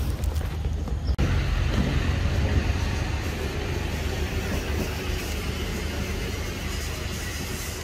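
A motor running steadily with a low rumble, under a hiss that grows louder about a second in.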